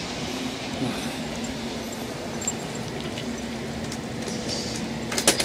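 Steady rumble of road traffic, with a faint low hum. A quick cluster of sharp clicks comes near the end.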